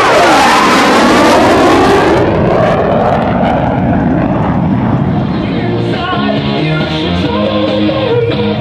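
CF-18 Hornet fighter jet passing, its engine roar dropping steeply in pitch as it goes by, then easing off over the first couple of seconds. Background music runs under it, and its notes come to the fore in the second half.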